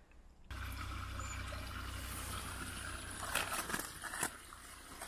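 Low wind noise on the microphone, coming in abruptly about half a second in. From about three seconds in come a few crunching footsteps on snow, roughly two a second.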